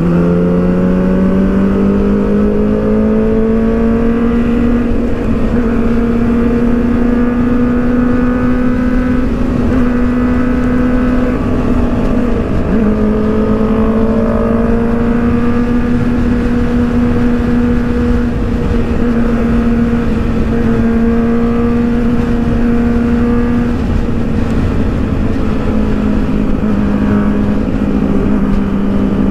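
Kawasaki ZX-6R (636) inline-four sportbike engine and exhaust running at steady cruising speed, heard from the rider's seat. The engine note climbs a little in the first few seconds and dips briefly about halfway through, over steady wind rush on the microphone.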